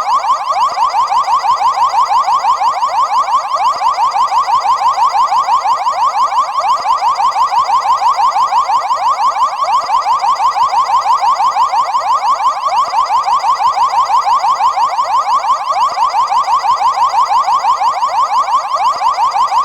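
Car alarm siren sounding loud and unbroken: a fast warble of quickly repeated rising sweeps, several a second, holding steady throughout.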